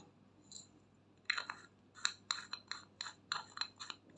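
Small plastic cosmetic glitter jar being handled, its lid twisted: a quick run of about a dozen sharp plastic clicks and taps over two and a half seconds.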